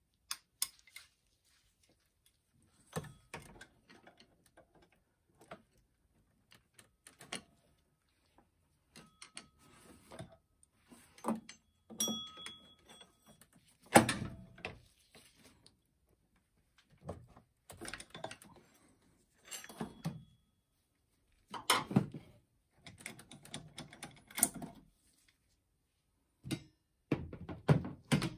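Irregular knocks, clicks and scrapes of hand work in a car's engine bay, as tools and parts are handled while the power steering pump is being removed. The sharpest knock comes about halfway through.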